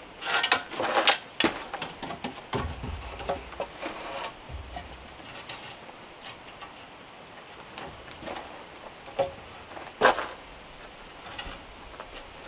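Wooden knocks and clatter as a long wooden beam is handled and set down on the oven base. Then come lighter taps and rubbing, with one sharp knock about ten seconds in.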